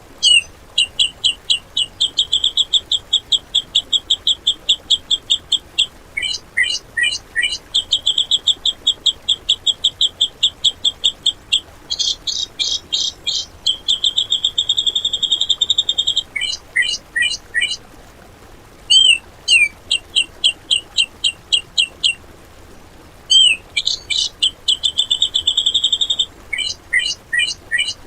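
Grey-cheeked bulbul (cucak jenggot) singing long trains of rapid, harsh, clipped notes, several a second, in runs of a few seconds broken by short pauses: the rough rapid-fire 'tembakan' song kept as masteran material for training other songbirds.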